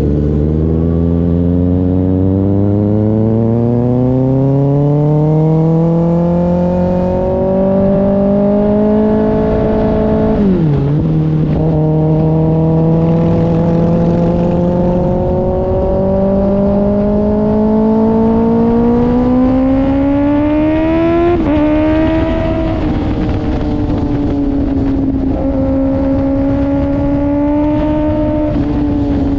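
2024 Kawasaki ZX-6R's inline-four engine through an IXIL aftermarket exhaust, pulling steadily up through the revs. The pitch drops sharply at an upshift about ten seconds in, then climbs again to a second shift about two-thirds of the way through, and after that the engine holds a fairly steady note with a couple of brief dips.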